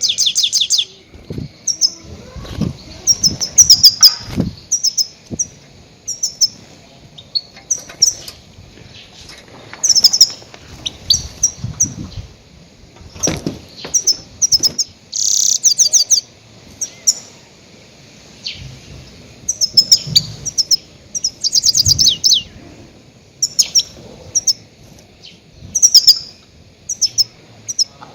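Goldfinch giving loud calls: short twittering bursts of a few high, quickly repeated notes, coming every second or two, the call used as a lure for trapping goldfinches. Soft low thuds sound between some bursts.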